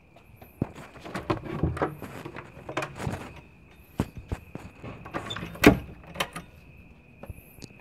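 A run of irregular clicks and knocks, the sharpest about two thirds of the way through, over a faint steady high-pitched tone.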